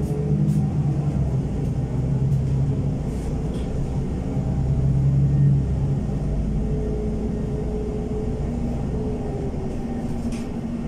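Inside a NefAZ 5299 city bus on the move: the engine and drivetrain hum steadily, building to their loudest about five seconds in and then easing off. A faint higher whine comes in for a few seconds after that.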